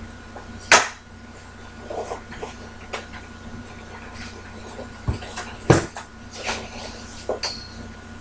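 Sharp clicks and knocks of a plastic battery-backup unit being handled and set about on a workbench, the loudest about a second in and another just past the middle, over a steady electrical hum.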